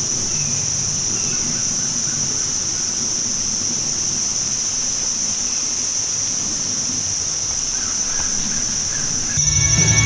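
Steady high-pitched drone of an insect chorus, crickets or similar, over a faint outdoor hiss. Near the end, music comes in abruptly.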